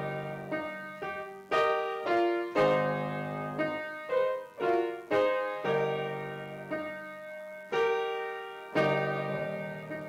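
Upright piano played slowly, a chord struck about once a second and left to ring and fade before the next.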